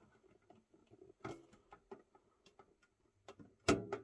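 Hands handling a shrink-wrapped cardboard box: scattered light ticks and crinkles, with a louder knock a little before the end.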